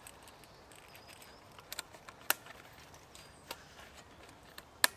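Metal hurricane lantern being handled as a leather holder is fitted around it: a handful of sharp metallic clicks and clinks, spaced irregularly, the loudest near the end.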